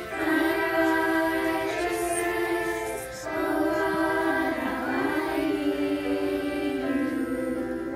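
A choir of girls' voices, with a woman's voice among them, singing a slow melody in long held notes, with a short break between phrases about three seconds in.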